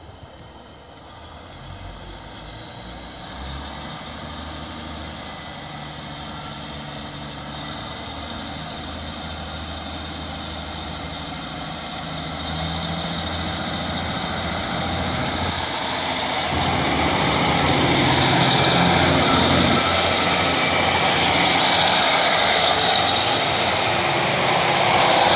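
Diesel multiple unit approaching with its underfloor diesel engine running, a low hum that grows steadily louder. From about two-thirds of the way in, it passes close by with a louder rumble of wheels on the rails.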